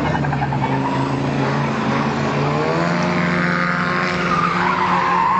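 Engines of several figure-8 race cars running hard as they lap the track, their pitch rising and falling as cars pass and accelerate.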